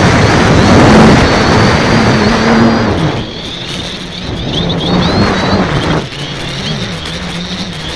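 X550AIOP multirotor's electric motors and propellers running in flight, heard through its onboard keychain camera, with wind rushing over the microphone. The rush drops away about three seconds in, leaving the motor hum and a high whine whose pitch rises and falls with the throttle.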